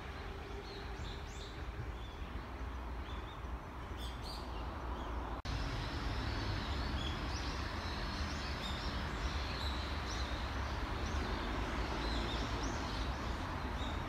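Small birds chirping repeatedly over a steady outdoor background hum with a low rumble. About five seconds in, the background steps up louder and the chirping carries on.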